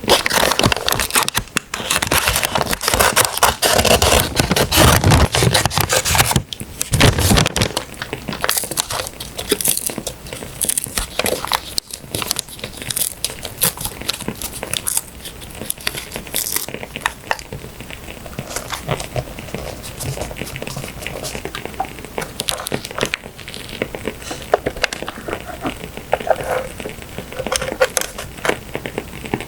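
Paper and stickers being handled: crinkling and rustling, heavy and continuous for about the first seven seconds, then lighter with scattered clicks.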